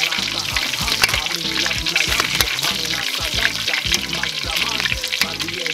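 Background music with a steady beat over a whole duck deep-frying in a wok of hot oil: a constant sizzle, with oil being ladled up and poured back over the bird.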